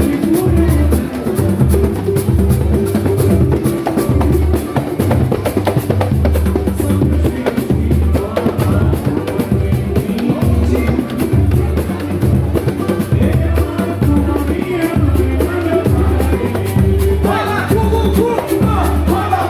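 Samba-pagode music: dense percussion over a deep, steadily pulsing bass beat, with voices singing near the end.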